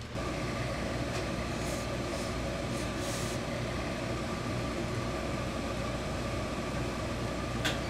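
Steady machine hum of workshop equipment with a faint constant tone, and a few short hisses between about one and three seconds in.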